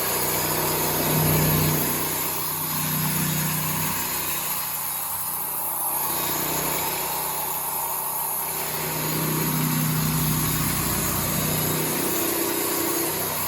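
An engine running, its hum swelling and easing every few seconds as the load changes; it starts and stops with the window.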